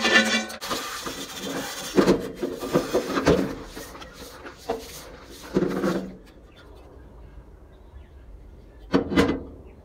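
Scrubbing and sloshing of soapy water as a large Lodge cast-iron fry pan is hand-washed in a stainless steel sink, with irregular rubs and splashes. It goes quieter about six seconds in, and one louder knock or splash comes near the end.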